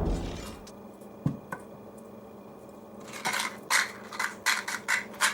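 A sound left over from a power tool fades out at the start. Then comes a single click, and from about three seconds in a quick run of short, sharp clicks and clatters, roughly two a second, as tools and small metal parts are handled during the amplifier teardown.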